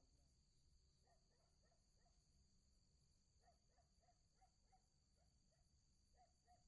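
Near silence: faint, steady high-pitched chirring of night insects such as crickets, with faint short calls now and then, a quick run of them in the middle and again near the end.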